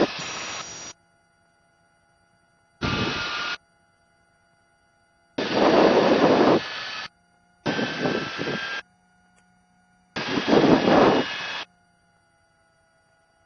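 Helicopter engine and rotor noise heard through the cabin intercom in five abrupt bursts of one to two seconds each, cutting in and out sharply as the headset microphones open and close, with faint steady tones from the intercom in the gaps.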